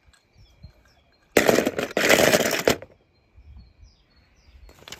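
Hollow plastic ball-pit balls clattering and rustling together as a hand stirs through them, in one dense rush of about a second and a half with a brief break, and a few light clicks before and after.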